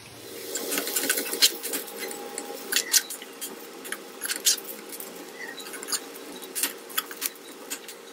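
A steel spoon stirring sliced onions and green chillies frying in oil in a non-stick pan, with scattered sharp clicks and scrapes of the spoon against the pan over a low sizzle.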